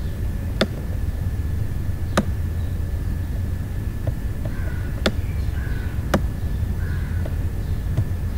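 Steady low hum of background noise with a faint high whine, broken by sharp computer-mouse clicks: about four clear ones, the strongest about two and five seconds in, plus a few fainter ones.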